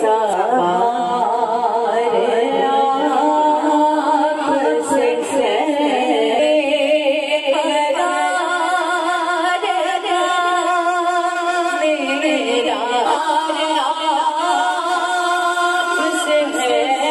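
Voices singing an unaccompanied devotional naat, with long, wavering held notes.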